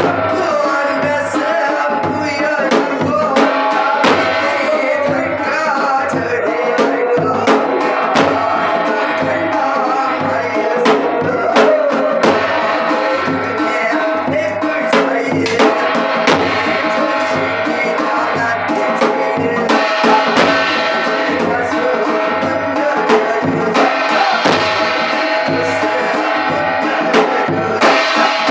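Korean shamanic ritual music: a steady drum beat with sharp percussion strokes under a wavering melodic line.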